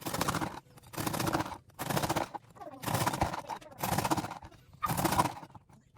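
A knife sawing back and forth through a loaf of homemade bread, a rasping stroke about once a second, six strokes in all.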